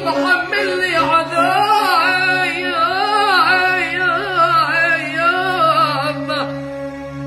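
A boy's voice singing a long, ornamented Arabic phrase, the pitch winding up and down through many turns, with violin accompaniment holding a steady low note underneath. The phrase dies away about six seconds in, and a new held note starts right at the end.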